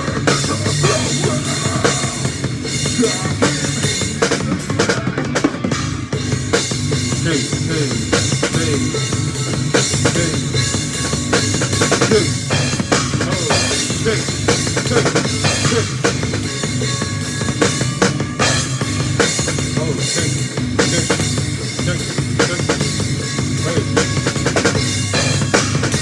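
Drum kit played continuously, with bass drum and snare hits in a dense, unbroken rhythm.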